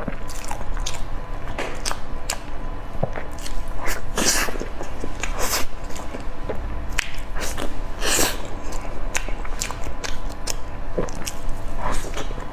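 Close-miked eating: biting and chewing with wet mouth clicks, broken by a few louder breathy bursts.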